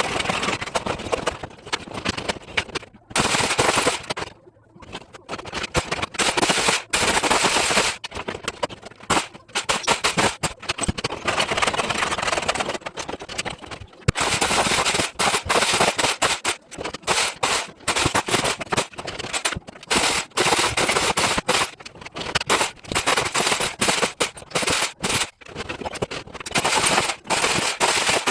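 Electric demolition hammer with a chisel bit chipping leftover tile adhesive off a surface: rapid hammering in bursts of a few seconds, with short pauses between them.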